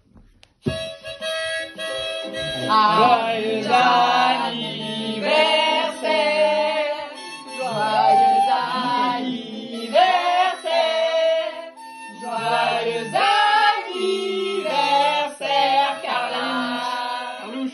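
Several voices singing together, accompanied by a strummed ukulele and a harmonica. The harmonica starts alone with a held note less than a second in, and the singing joins a couple of seconds later.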